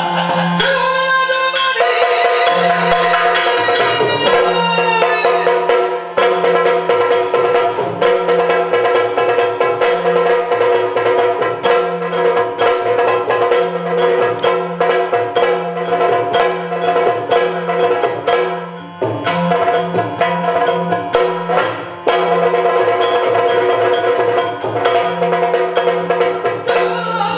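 Yakshagana ensemble music for a dance-fight: fast, dense chende drum strokes over a steady drone, with brief breaks in the drumming several times.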